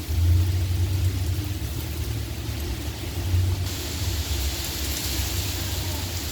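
Storm wind buffeting the microphone in a heavy low rumble, over the hiss of rain. The rain hiss gets louder a little past halfway through.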